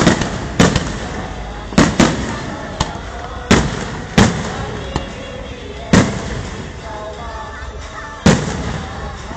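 Fireworks going off: about nine sharp bangs at irregular intervals, each trailing off in an echoing decay, with two quick pairs close together near the start.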